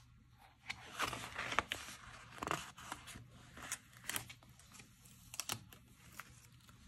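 Paper stickers being peeled by hand off a sticker sheet: short tearing, crackling rustles that come in bursts every second or so.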